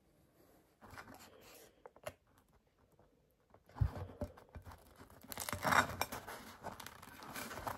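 Ketchup squeeze bottle squirting onto a bockwurst in a bread roll, then the roll's crisp crust crackling and crunching as a hand presses the top down over the sausage.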